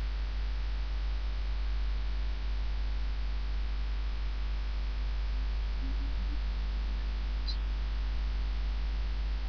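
Room tone: a steady low hum with a faint even hiss, and no alarm sounding.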